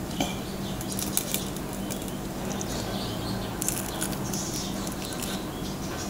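Crispy deep-fried pork knuckle skin crackling as it is torn apart by hand and bitten into, with close-up chewing. It is a run of short, irregular crisp crackles.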